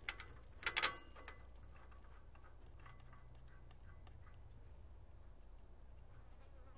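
A few sharp metallic clicks about a second in, then faint scattered ticks over a low steady hum: hand-tool and bolt work on the engine.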